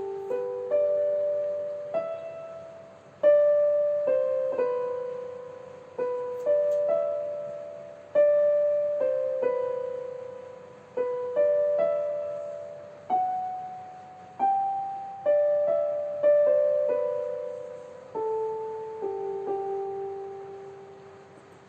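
Background music: a slow piano-like keyboard melody of single notes and soft chords, each struck and left to fade.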